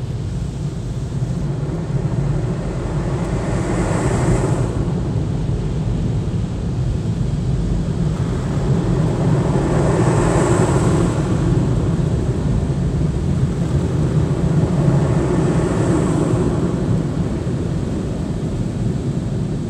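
Tunnel car wash blower dryers running, a loud steady rush of air with a low hum heard from inside the car, swelling three times.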